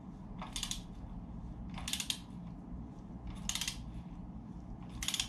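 Ratchet wrench with a 20 mm socket loosening a fork top cap, letting out a short burst of clicks on each return stroke, four times about a second and a half apart.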